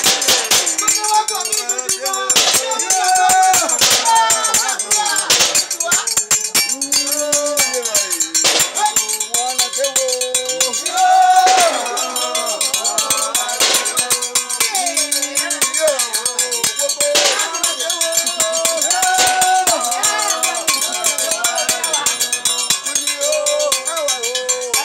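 Voices singing a Mende dance song together over a fast, steady clanking of struck metal percussion, like a bell or beaten metal basin.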